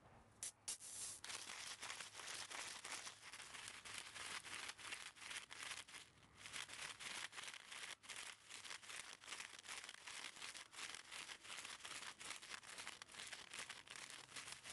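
Faint rustling and crackling of grass and dry straw as a Shiba Inu puppy walks and noses through it: a dense run of small crackles, with a short lull about six seconds in.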